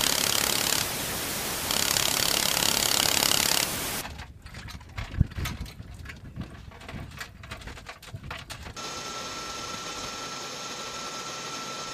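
Loud wind and rotor noise in the open-door cabin of an HH-60G Pave Hawk helicopter in flight, cut off abruptly about four seconds in. Then scattered clicks and knocks of crew handling gear at the parked helicopter's cabin door, and from about nine seconds a steady hum with a thin high whine.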